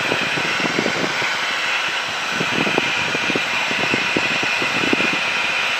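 Steady drone of a Cessna 182 Skylane's piston engine and propeller in flight, heard inside the cockpit as an even hiss-like noise.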